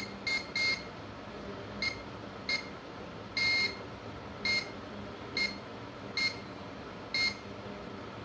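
Multimeter continuity buzzer giving about ten short high beeps at uneven intervals, one held longer near the middle, as the probe tip touches pads on a phone logic board. Each beep marks continuity on the supply lines that are still shorted, the VREG L15A and VREG BOB rails.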